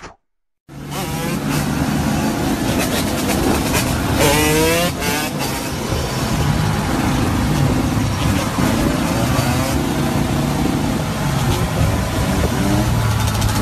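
Several dirt bike engines running and revving together on the road, starting under a second in. About four seconds in, one engine revs up sharply with a rising pitch.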